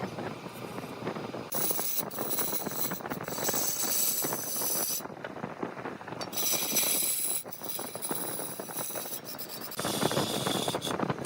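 Large wood lathe running, with a turning tool cutting into the spinning wood in three stretches of hissing scrape, about a second and a half in, near the middle and near the end, over a steady rattling noise full of sharp clicks.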